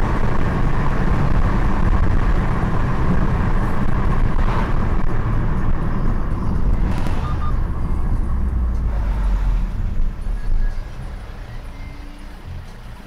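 Engine and road noise inside a moving car, picked up by a dashcam microphone: a steady low rumble that drops off about eleven seconds in as the car slows to a stop.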